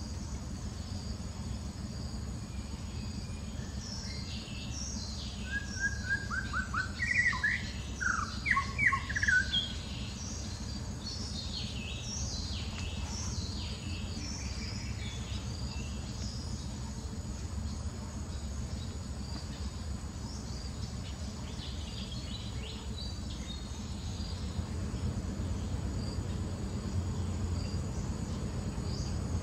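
Outdoor ambience of birds chirping over a steady low rumble, with thin high chirps scattered through the first half. A run of louder chirping calls a few seconds in is the loudest sound.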